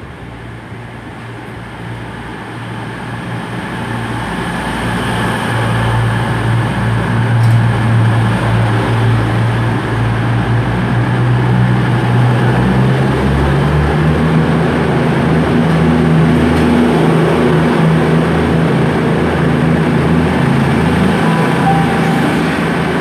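Virgin Trains Class 221 Super Voyager diesel-electric multiple unit running through the station as an empty-stock move, its underfloor diesel engines droning. It grows louder over the first several seconds as it draws alongside, and the engine note shifts about halfway through as further cars pass close by.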